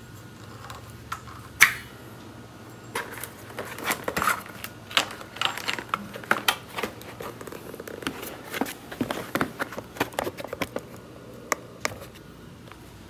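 Scattered clicks, taps and knocks of hands handling welding gear: the shielding-gas cylinder's valve and regulator, then an auto-darkening welding helmet. There is one sharp click about a second and a half in, then a busy run of irregular clicks with no steady rhythm.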